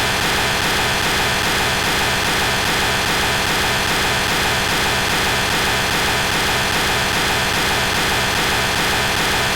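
A steady, loud, heavily processed electronic noise that holds unchanged with no breaks or pitch changes.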